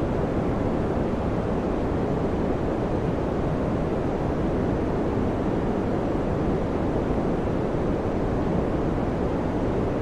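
Electric fan running steadily: an even rush of airflow noise, heaviest in the low and middle range, with no hum, tick or rattle.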